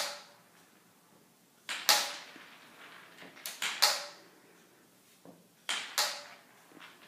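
A stick striking marbles and the marbles clacking across a wooden floor. There are sharp clicks in small groups roughly every two seconds, each with a short ringing tail.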